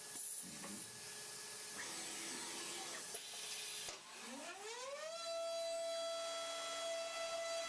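High-speed milling spindle of a DATRON M8Cube machining center: after a stretch of hiss and scattered machine noise, it spins up about four seconds in with a rising whine, then settles into a steady high whine at running speed.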